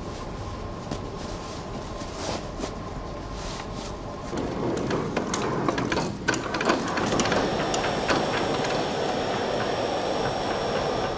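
Electric chain hoist on an overhead crane running, a steady motor hum with rapid clicking of the load chain, starting about four seconds in and stopping abruptly.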